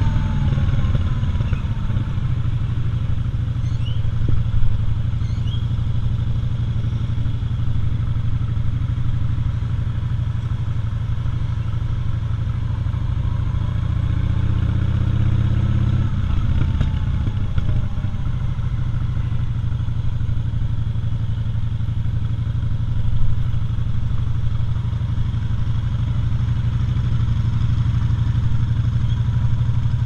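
Cruiser motorcycle's engine running at low speed, a steady low rumble, with a brief rise in engine pitch about halfway through.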